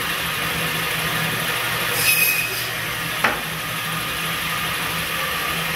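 Biro Model 55 meat band saw running with a steady hum. About two seconds in there is a brief higher rasp as the blade cuts through pork, and a sharp knock about a second later.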